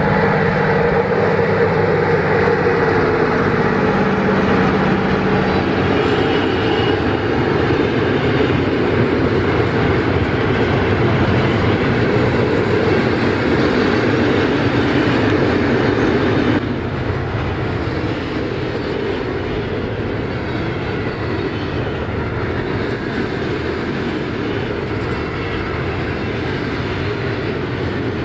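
Freight train passing close by: an electric locomotive followed by a long string of container flat wagons rolling on the rails. The sound is loudest in the first part, drops abruptly about two-thirds of the way in, and continues as a steady rolling of the wagons.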